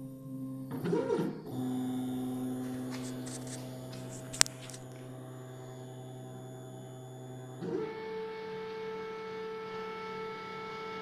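Stepper motors of a CNC-converted Optimum BF20 milling machine driving the table axes during a homing cycle: a steady whine of several tones that glides up and down about a second in and changes pitch near the end. One sharp click about four seconds in.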